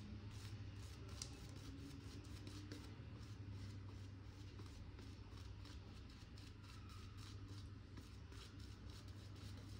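King C. Gillette safety razor with a Lord blade scraping through lathered stubble in a quick series of short strokes.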